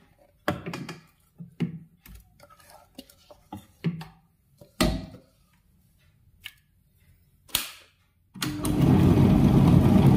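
Scattered knocks and scrapes of a jar and spoon against the steel drum of a tabletop wet grinder as masala paste is scraped in. About eight seconds in, the wet grinder is switched on and runs steadily, its stone rollers grinding the spice paste.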